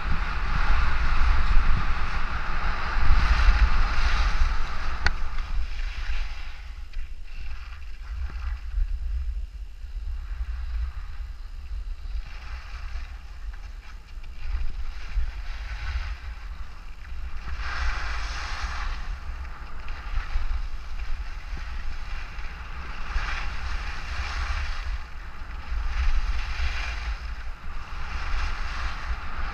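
Skis hissing and scraping over packed snow through a run of turns, with wind buffeting the microphone as a low rumble. Loudest in the first few seconds, then quieter, swelling again with later turns.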